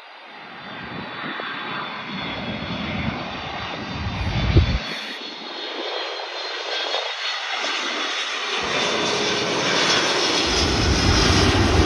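Jet airliner with its landing gear down passing low on final approach, its engine noise growing steadily louder as it nears, with a high whine over the noise in the first part.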